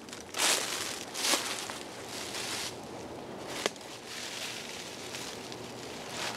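Footsteps crunching through dry leaf litter, two loud crunches in the first second and a half, followed by softer rustling of leaves and pine straw with one sharp click about three and a half seconds in.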